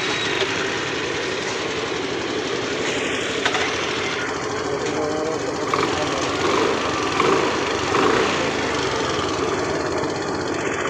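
Honda Grazia scooter's single-cylinder four-stroke engine running steadily at idle after a kick start. The scooter starts on the kick but not on its electric self-starter.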